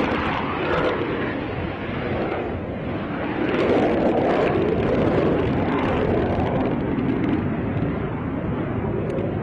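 Dassault Rafale's twin M88 turbofan jet engines as the fighter climbs away after take-off: a steady rushing noise that swells about three and a half seconds in, then slowly fades and dulls as the jet goes away.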